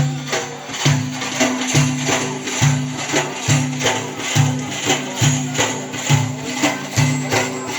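Instrumental backing music between sung verses: a steady percussion beat of sharp, jingly strokes, about two a second, over a repeating low melodic line.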